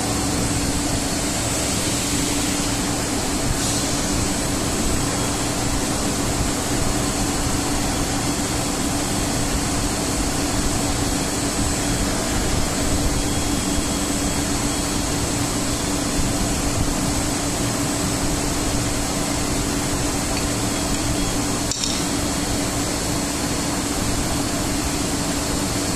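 Friction stir welding machine running as its spinning tool travels along a seam in an aluminium cold plate: a steady hum with one constant tone over an even hiss.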